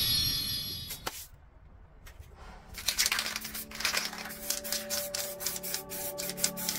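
Spray paint can hissing in a run of short, sharp bursts onto the canvas, starting about two seconds in after a single click.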